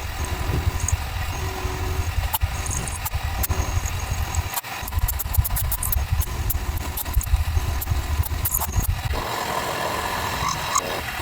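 A machine motor running steadily with a fast, pulsing low rumble and scattered sharp clicks. It changes character about nine seconds in.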